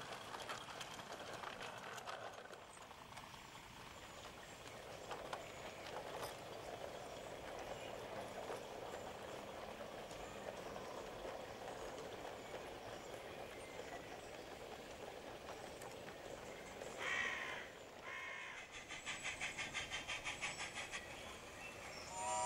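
Faint rolling and clatter of a 16mm-scale garden-railway train running along 45 mm gauge track. About three-quarters through there is a brief louder hiss, and near the end a quick rhythmic beat, about five a second.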